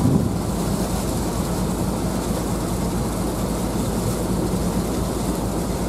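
Steady low rumble of the JR Miyajima ferry's engine underway, with an even rush of wind and water over it.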